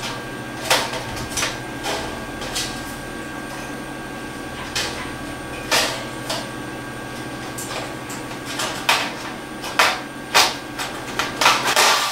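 Spring-steel Tinnerman clips clicking and tapping against a sheet-metal panel as they are picked up and pushed onto the holes along its edge: irregular sharp metallic clicks, a few at a time, more frequent near the end, over a steady low hum.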